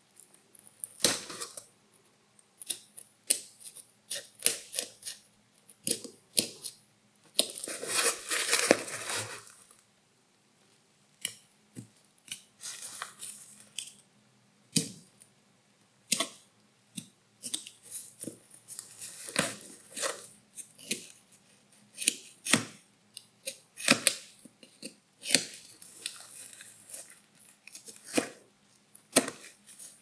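Pocketknife blade picking and cutting the stitching of a sewn-on fabric label, close up: a run of short sharp clicks and snips as threads give, with a longer rough scraping, tearing stretch about eight seconds in.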